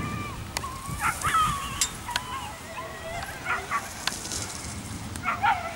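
Dogs yelping and whining excitedly in short rising and falling calls, with a few sharp clicks.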